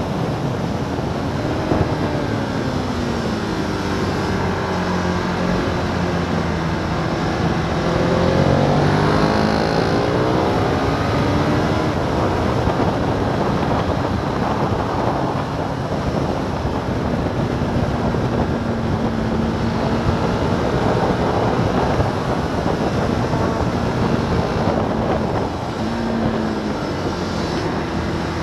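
Sport motorcycle engine running hard at track speed, its pitch rising and falling through throttle and gear changes, over a steady rush of wind noise.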